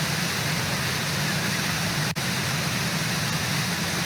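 Steady rush of waterfall water, an even noise with no separate events, broken by a brief dropout about halfway through.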